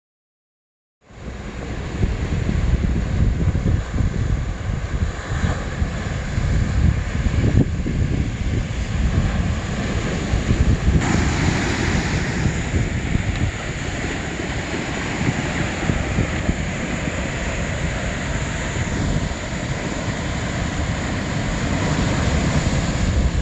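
Wind buffeting the phone's microphone over the wash of sea waves on a pebble beach, a steady rushing noise with heavy low rumble that starts abruptly about a second in.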